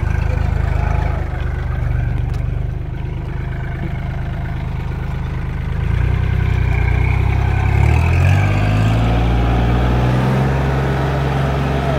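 Kubota L4018 tractor's diesel engine running steadily, then throttling up about six seconds in, its pitch climbing and holding higher as it pulls a pickup stuck in mud on a tow rope.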